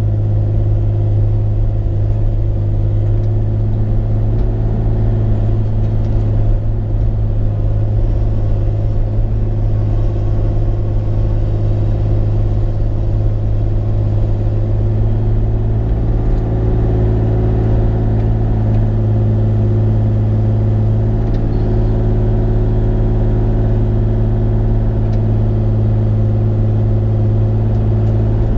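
Bobcat E35 mini excavator's diesel engine running steadily at working speed, a constant drone with a deep hum.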